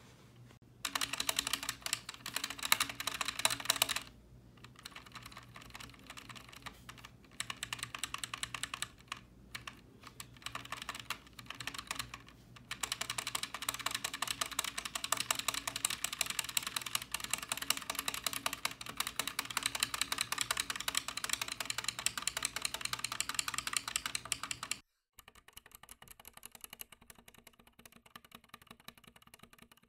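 Typing and spacebar presses on a 60% mechanical keyboard with Zilents silent tactile switches, a fast run of key clicks with the spacebar stabilizers not yet damped. After a sudden cut about 25 s in, fainter typing on the same board with its stabilizers damped with Blu Tack.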